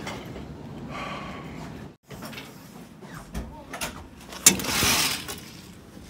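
Sliding door opening: a sharp click about four and a half seconds in, then a short rushing slide, after a few lighter clicks and knocks.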